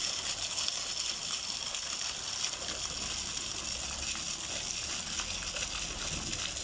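Small ground-level fountain jet spouting from a stone paving slab, its water splashing steadily back down onto the wet stone.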